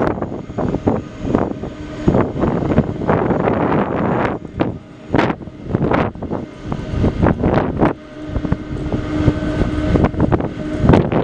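Wind buffeting the microphone in uneven gusts, over the steady hum of a Boeing 747-400 freighter's jet engines; the hum stands out more clearly near the end.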